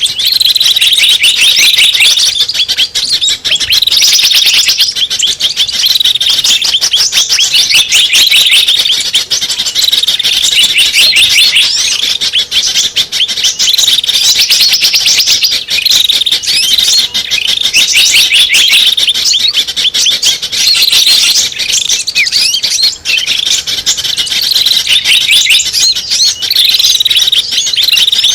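Small-bird lure (pikat) recording: dense, continuous, rapid high-pitched chirping and trilling of small birds, with a phrase that repeats about every two seconds, as in a looped lure call.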